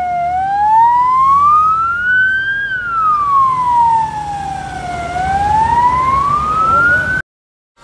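Ambulance siren in a slow wail, its pitch climbing, falling and climbing again over several seconds, then cut off suddenly near the end.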